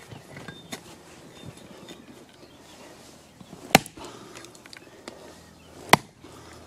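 Blunt axe chopping into a plum tree stump: two sharp strikes about two seconds apart, one just past the middle and one near the end, with a few lighter knocks between.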